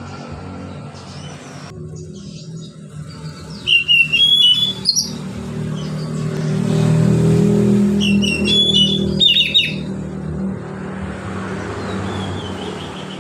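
Oriental magpie-robin (kacer) singing its relaxed, open song in two short bursts of quick, sharp whistled notes, about four seconds in and again around eight to nine seconds, with a fainter run of falling notes near the end. Under it a low engine rumble, as from a passing vehicle, swells and fades in the middle.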